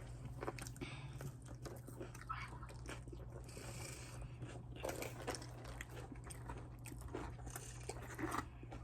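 Someone chewing and biting into a toasted chicken bacon ranch sandwich, with scattered small crunches and mouth clicks.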